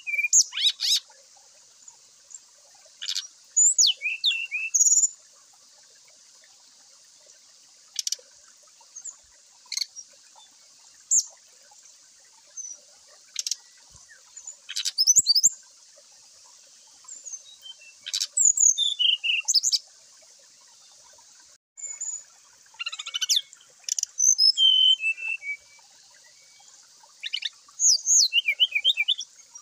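Brown-chested jungle flycatcher giving short, sharp high-pitched calls and brief song phrases, scattered with pauses of a second or more between them.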